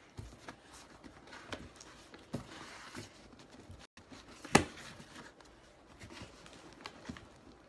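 Hands working at a cardboard shipping carton bound with tight plastic strapping: scattered taps, scrapes and rubbing on the cardboard and straps, with a rustling scrape about two and a half seconds in. One sharp, loud knock comes a little past halfway.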